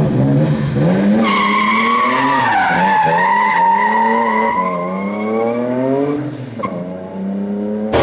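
Nissan Skyline R32 sliding its rear out under power, tyres squealing from about a second in until near the end, with the engine revving up and down beneath the squeal.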